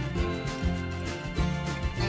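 Background music with a steady beat, bass and plucked guitar.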